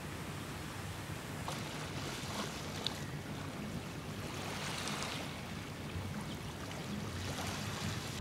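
Steady sea noise of wind over choppy water and waves, with a low rumble underneath.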